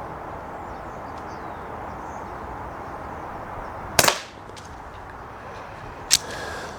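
Snowpeak PP20 .177 regulated pre-charged pneumatic air pistol firing a single shot about four seconds in, a short sharp crack, with a fainter click about two seconds later over a steady hiss.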